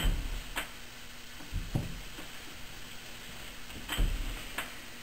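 Repeated strokes of a lathe-mounted broaching cutter shearing teeth into a steel gear blank. Each stroke is a low scraping thud with a sharp click, coming near the start, just under two seconds in and about four seconds in.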